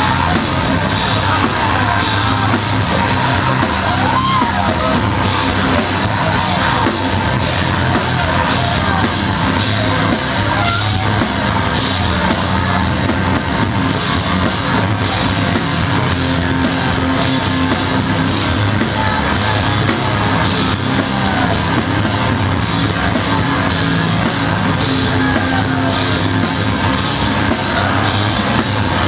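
Live noise-hardcore band playing at full volume: distorted electric guitars over a drum kit, with the cymbals and drums hitting about three times a second in a dense wall of sound.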